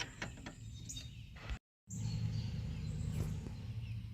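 A few light clicks as drum-brake springs and shoes are handled. After a brief dropout there is a steady low hum with faint birds chirping.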